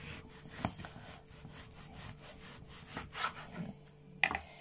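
Large kitchen knife sawing back and forth through a raw pork joint: a run of quick, rasping cutting strokes, with a few sharper knocks along the way.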